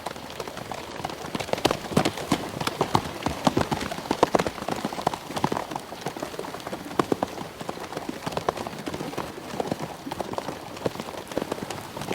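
A horse trotting, its hooves striking hard ground in a quick, uneven clip-clop of sharp strikes.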